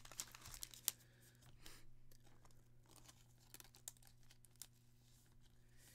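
Near silence with faint rustling and light clicks of a trading card and its plastic sleeve being handled, over a low steady hum.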